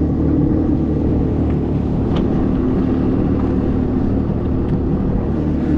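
Jet-drive river sled's engine running steadily at an even speed, a constant low hum with no change in pitch. On this post-repair test run it is running normally, with no warnings or codes.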